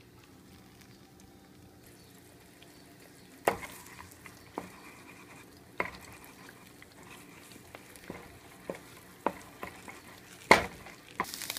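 Wooden spatula stirring beaten eggs frying in hot oil in a nonstick pan. After a few quiet seconds there are scattered knocks and scrapes of the spatula against the pan, the loudest about ten seconds in, over faint sizzling that grows loud just before the end.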